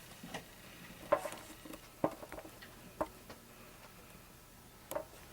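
Scattered sharp clicks and light knocks, about seven over five seconds, from hands working at a breaker panel as the furnace's breaker is switched off.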